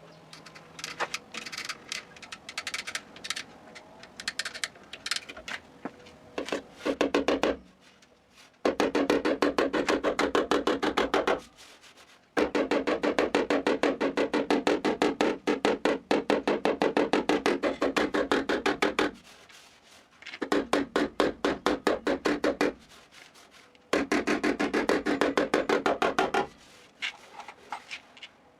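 A tool working the sheet metal of a car's trunk door with very rapid, evenly repeated rasping strokes, in several bursts of a few seconds each with short pauses between; the longest run lasts about seven seconds.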